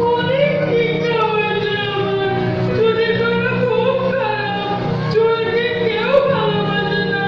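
Music with a voice singing a melody over a steady low drone.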